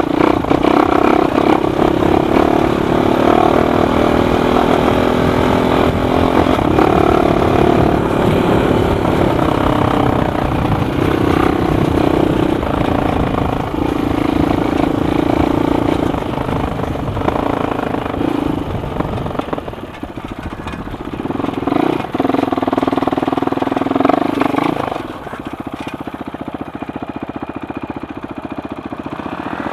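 Suzuki LTR 450 quad's single-cylinder four-stroke engine running at changing revs as the throttle is opened and eased off. About 25 seconds in, it drops to a quieter, steady run.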